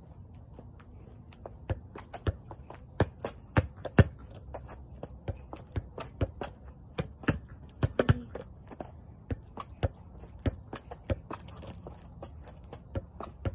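Soccer ball being juggled, kicked up again and again: a run of quick, uneven thumps and taps, two or three a second, loudest about four seconds in.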